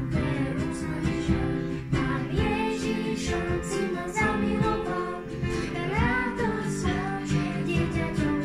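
Children and a woman singing a Slovak children's worship song, accompanied by piano and a strummed ukulele.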